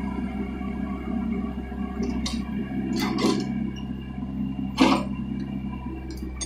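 Komatsu PC40MR mini excavator's diesel engine running steadily as the hydraulics work the arm and bucket, with a few sharp metallic knocks from the working gear, the loudest about five seconds in.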